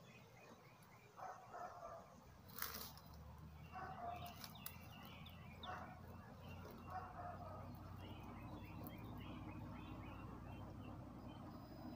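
Faint birdsong: short chirping phrases repeating every second or two. A short hiss comes about two and a half seconds in, and a low steady hum builds under it through the second half.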